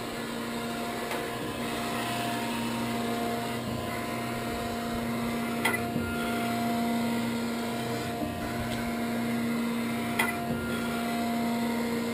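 Gallmeyer & Livingston Grand Rapids Model 560 surface grinder running, its electric drive and hydraulic motors giving a steady hum with a couple of steady tones. Two short sharp clicks come about halfway through and near the end.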